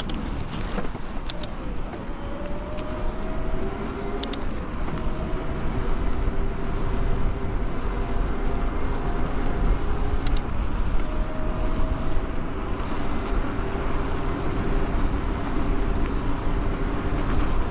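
Bafang BBS02 750 W mid-drive e-bike motor whining steadily under power while riding, its pitch rising briefly a few times as it speeds up, over a steady rush of wind and tyre noise. A few light sharp clicks come through.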